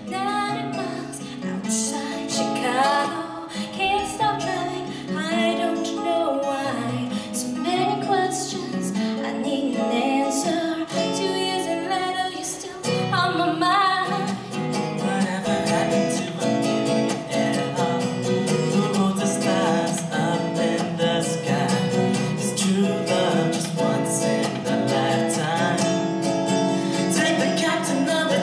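A young woman singing a slow song to acoustic guitar accompaniment, the guitar plucked and strummed under her voice.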